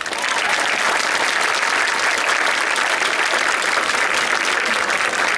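Audience applauding steadily, a dense, even clapping that rises at the start and holds.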